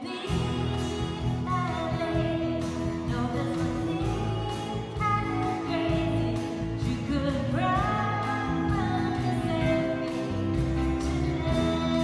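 A live rock band playing a song, with drums, electric guitar, bass, acoustic guitar and keyboard, and a voice singing over it. The drums keep a steady beat, and the singing line slides upward about seven and a half seconds in.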